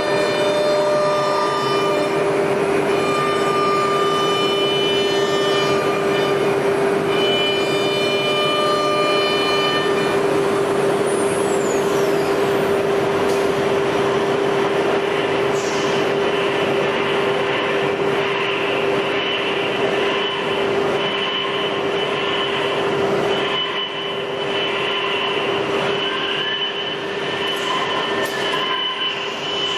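CNC router spindle running with a steady high whine as the bit cuts MDF, over a dense rush of cutting and extraction noise. Higher tones switch on and off as the machine moves between cuts.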